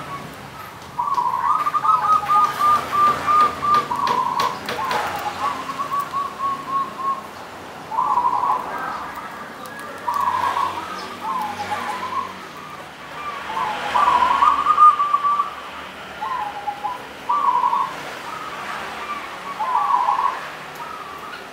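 Zebra dove (perkutut) singing: about ten phrases of quick, rolling coos, each a second or two long, separated by short pauses.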